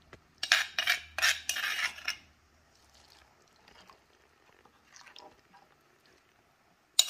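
Metal spoon clinking and scraping against a stone mortar and a glass bowl, several sharp strikes in the first two seconds, then quiet stirring of chili paste into citrus juice in the glass bowl.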